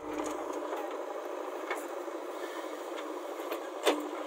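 JCB backhoe loader's diesel engine running steadily at work, with a faint knock about 1.7 s in and a sharp clank just before the end as the steel bucket bites into the soil.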